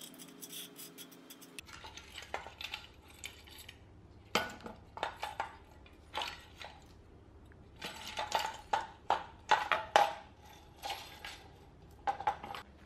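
LED light bars with their metal mounting brackets and bolts clinking and knocking against each other and a tiled floor as they are handled, in irregular sharp knocks that are loudest about eight to ten seconds in.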